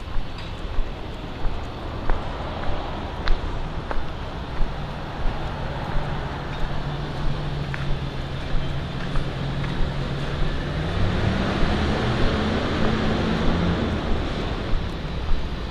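Street traffic with a vehicle passing, its engine hum climbing in pitch and loudest in the second half. Under it, a walker's footsteps on pavement at an even pace, about three steps every two seconds.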